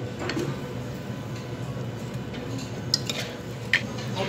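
Cutlery clinking against dishes over a steady background hum, with two sharp clinks about three seconds in and again almost a second later.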